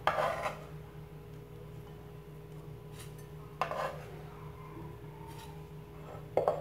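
Kitchen clatter: a steel cleaver scraping and knocking against a ceramic bowl and wooden cutting board at the start, then two short knocks, about three and a half seconds in and near the end, as the cleaver and bowl are set down. A low steady hum runs underneath.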